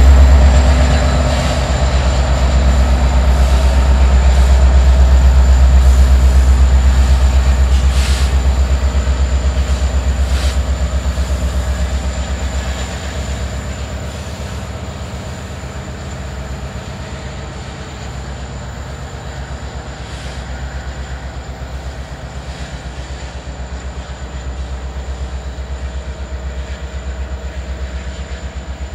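Canadian Pacific SD70ACU diesel-electric locomotive (EMD 16-710 prime mover) rumbling low as it moves off with its tank cars, the sound fading as it draws away. Two sharp metallic clanks come from the train partway through.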